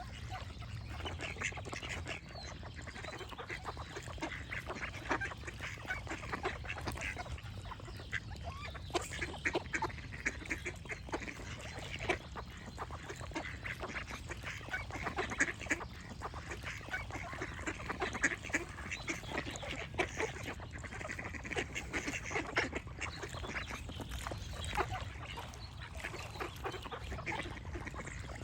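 A flock of ducks quacking continually, many short calls overlapping, over a low steady rumble.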